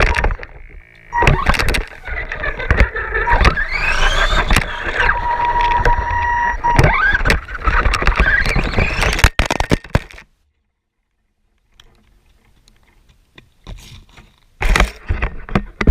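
A small electric motor, likely the RC car's, whining, its pitch gliding up and down as it speeds up and slows, with clattering knocks throughout. It cuts off abruptly about ten seconds in, and loud clattering returns near the end.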